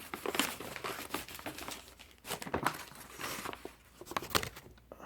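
Packaging being crumpled and torn open by hand, an irregular run of crinkling and crackling, as a wrench is unwrapped.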